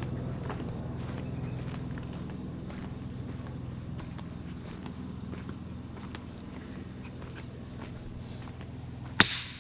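Insects calling in a steady, even high-pitched chorus, with faint scattered ticks and one sharp knock near the end.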